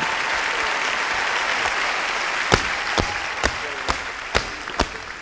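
Studio audience applauding, the clapping fading as tap shoes begin striking the wooden stage about two and a half seconds in. The taps are sharp, single and about two a second.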